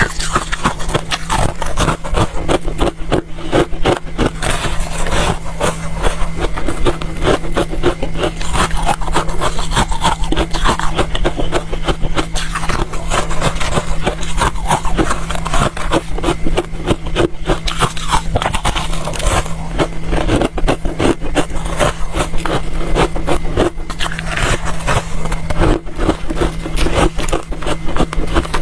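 Freezer frost being chewed close to the microphone: a dense, continuous run of quick crisp crunches, with a steady low hum underneath.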